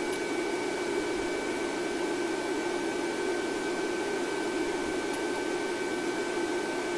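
Steady drone and hiss of a police helicopter in flight, heard from on board: a constant low hum with two faint high whines held steady over it.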